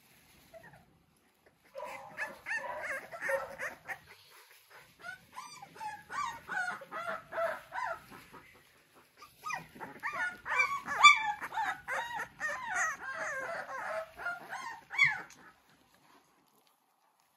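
A litter of three-week-old American Bully puppies whining and yipping as they play-fight and mouth one another: many short cries that slide up and down in pitch, coming in three bouts with brief pauses between, and stopping shortly before the end.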